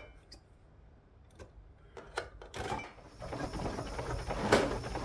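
Small plastic drawers of a parts organiser cabinet being handled: a few light clicks, then rummaging and clattering from about three seconds in, with a sharper clack near the end.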